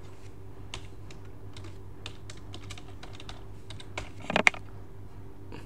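Computer keyboard being typed on: scattered single keystrokes as a password is entered at a login prompt, with a louder cluster of key strikes a little after four seconds in.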